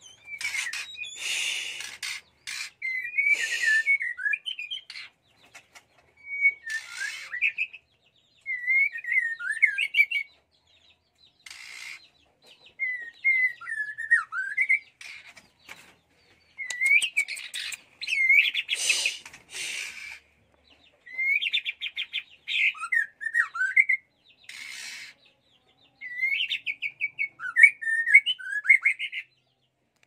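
White-rumped shama singing: short phrases of clear, gliding whistled notes broken by pauses, alternating with brief harsh, noisy notes.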